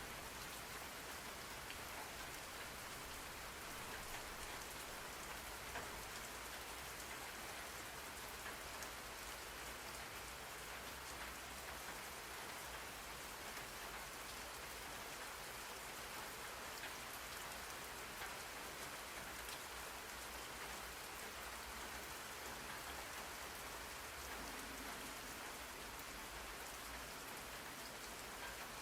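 Steady rain falling on a surface, a constant hiss with faint patter of drops, used as study white noise.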